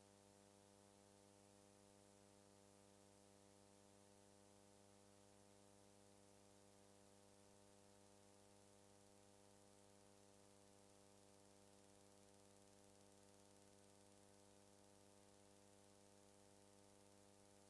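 Near silence: a faint, steady electrical hum with hiss, unchanging throughout.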